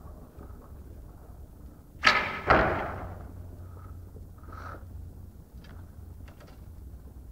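A recurve bow is shot: the string snaps forward on release, and about half a second later the arrow strikes the target with a loud thud that rings on in the hall. A few faint small clicks follow.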